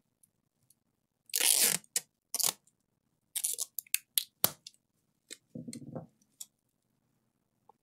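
Kapton tape being pulled off its roll in ripping strips, the loudest about a second and a half in and a shorter one just after, then a run of sharp crinkles and snaps as the tape is torn and handled, and a low rustle near the end as it is pressed down.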